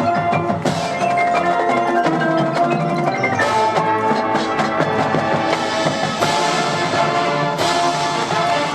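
A marching band's front ensemble playing, with marimba and glockenspiel-type mallet keyboards to the fore over held band notes. A few sharp accents hit across it.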